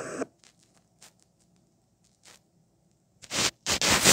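Near silence with a few faint clicks, then two short bursts of rustling, scraping noise about three and a half seconds in, the second longer, like something rubbing close to the microphone.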